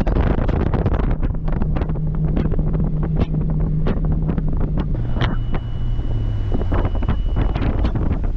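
Boat's outboard motor running underway, with heavy wind buffeting the microphone; the engine's pitch drops about five seconds in as it slows.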